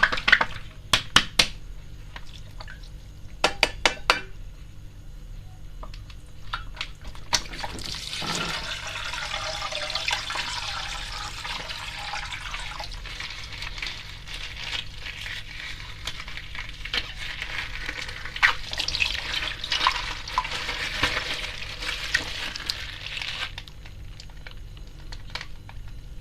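A few sharp clicks and taps, then water pouring and splashing for about sixteen seconds, likely coloured water draining from a plastic bag.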